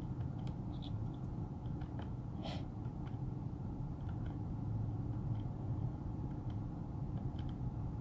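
Steady low hum in a pickup truck's cab, with a few faint ticks scattered through it.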